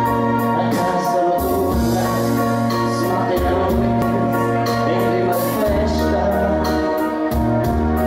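Karaoke duet: a man and a woman singing through microphones over a backing track of held keyboard chords and a steady drum beat.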